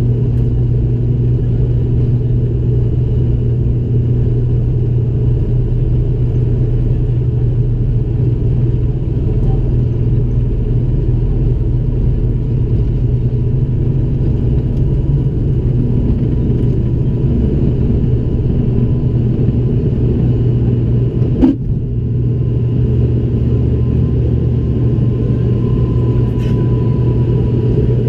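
ATR 72-500's Pratt & Whitney PW127 turboprop heard from the cabin beside the engine at takeoff power: a loud, steady propeller drone with a strong low hum, through the takeoff roll and lift-off into the climb. A single sharp knock comes about three-quarters of the way through.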